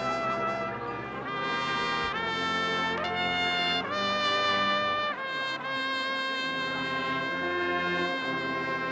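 Brass-led marching wind band playing sustained chords that change about once a second, then holding one long chord for the last few seconds.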